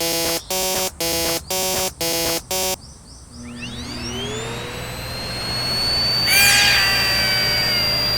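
Level-crossing warning alarm sounding about twice a second, a chord of several electronic tones, stopping about three seconds in. A rising whine then levels off into a steady high tone over a low hum, with a quick falling sweep around six seconds in.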